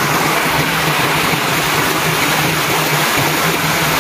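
Shallow rocky stream running over stones: a steady, continuous rush of water.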